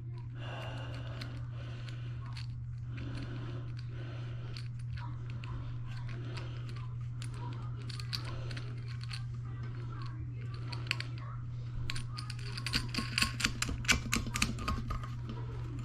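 Small metal clicks and clinks of nuts and washers being handled and threaded by hand onto toilet floor bolts, sparse at first and turning into a quick run of clicking in the last few seconds, over a steady low hum.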